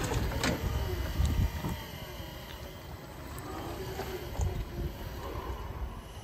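Toyota 7FBM25 battery-electric forklift driving and turning: the electric drive motor whines, its pitch rising and falling with speed, over a low rumble.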